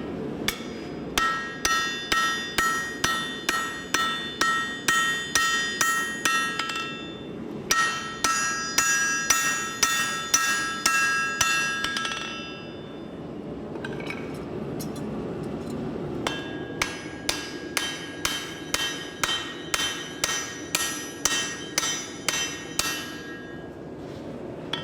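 Steel axe used as a hammer, striking a hot axe blank on an anvil to profile its shape. The blows come in three runs at about two to three a second, each blow ringing with a clear metallic tone.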